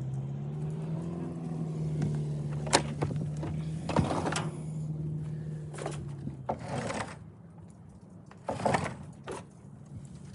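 Hand tools knocking and scraping against metal: several separate sharp clanks and short scrapes while working at Torx fasteners on a car engine. A steady low hum sounds under it and stops about two-thirds of the way through.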